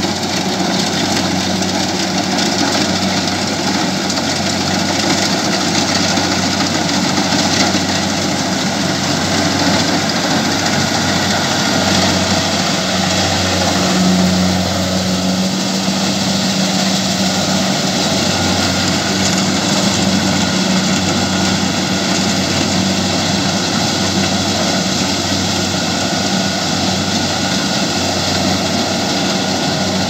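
Kubota DC105X rice combine harvester running steadily as it cuts and threshes rice, its diesel engine and threshing machinery making a continuous drone with a low hum. The hum grows louder about halfway through as the machine passes close.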